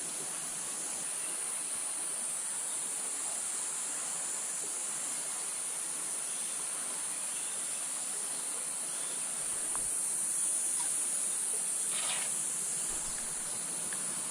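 Steady high-pitched drone of insects over the even rush of a muddy, swollen stream.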